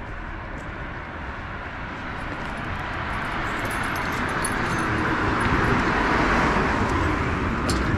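A car moving along the street: steady road noise that grows louder through the second half.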